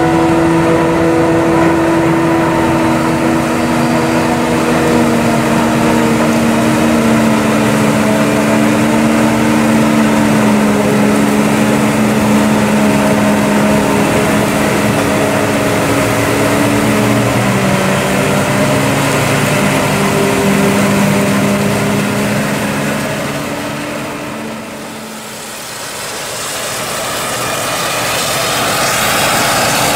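Claas Jaguar 870 forage harvester chopping maize into a silage wagon pulled by a New Holland T7 tractor, the engines running steadily with a hum that slowly drifts lower. About twenty-five seconds in the sound dips briefly, then comes back closer and hissier as the forage harvester chops maize at close range.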